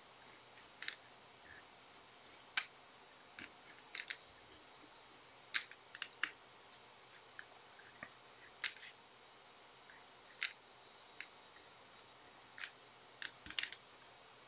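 Pencil sketching on paper: about a dozen short, quick scratchy strokes at irregular intervals, with quiet room tone between them.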